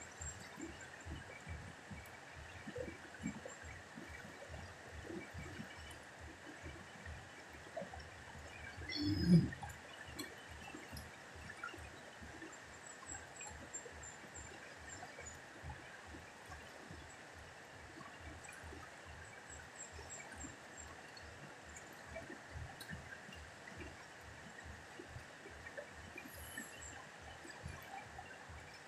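Steady rush of a fast-flowing, muddy river running over rocks and small rapids. A brief, louder low sound breaks in about nine seconds in.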